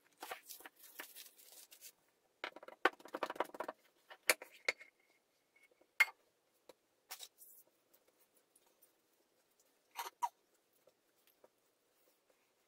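Cling film crinkling as it is pulled off a bowl of risen bread dough, then the dough being tipped out and knocked back by hand on a worktop. Scattered rustles, mostly in the first few seconds, then a few sharp clicks and soft knocks.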